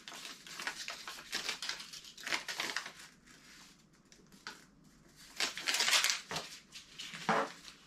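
Paper and tape wrapping crinkling and tearing as a small item is unwrapped by hand, in irregular rustles with a short lull midway.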